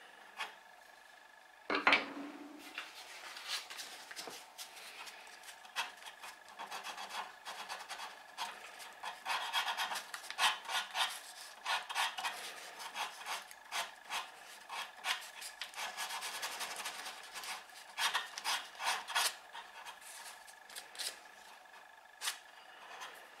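Sandpaper rubbed by hand over the end of a wooden plane wedge in many short, scratchy strokes, tidying the wedge end. A single sharp knock comes about two seconds in.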